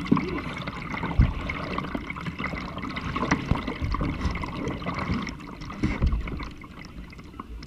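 Kayak paddle blades dipping and pulling through the water, with splashing and trickling drips, and a few dull knocks.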